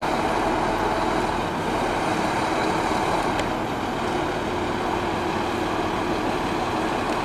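A steady engine drone under outdoor background noise.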